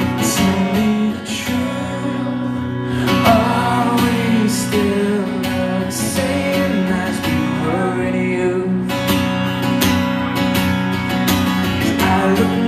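Steel-string acoustic guitar strummed in a steady rhythm, playing a song's opening chords live through a PA.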